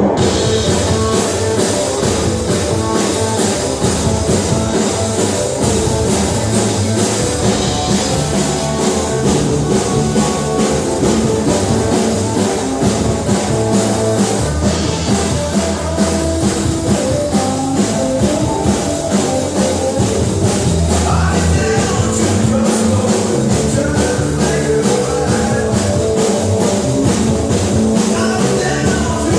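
Rock and roll music played by a full band with a drum kit keeping a steady beat.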